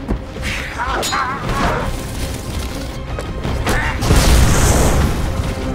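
Action film soundtrack: dramatic score under explosions and fight sounds, with the heaviest blast about four seconds in.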